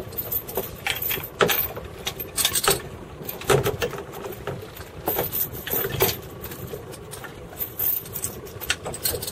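Irregular knocks, clicks and light rattles, several each second, like hard objects being handled and bumping together.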